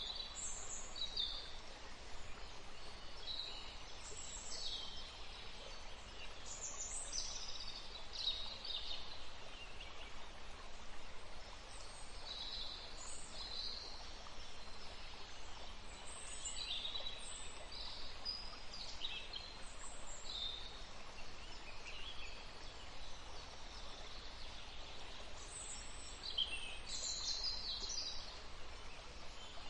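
Several songbirds chirping and singing, short high calls and trills overlapping every second or so, over a steady faint background hiss.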